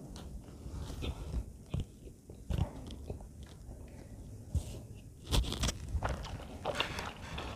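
Close-miked chewing of a mouthful of aloo paratha: soft, wet mouth sounds and small clicks. The sounds grow sharper and crisper for the last couple of seconds.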